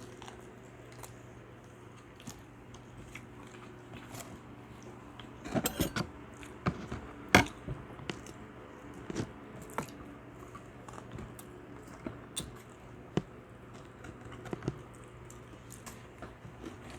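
Close-miked mukbang eating sounds: chewing and biting, with scattered clicks and knocks of cutlery and dishes, the loudest about seven seconds in. A faint steady hum runs underneath.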